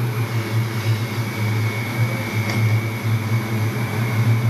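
Steady low hum of a commercial kitchen extractor hood fan, with a thin, even high whine riding over it.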